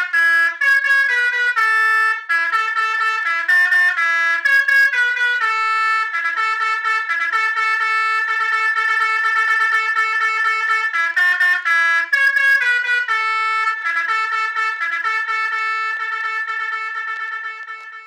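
Telolet horn on an odong-odong mini train playing a tune: a run of trumpet-like horn notes stepping up and down in pitch, with a long steady stretch in the middle.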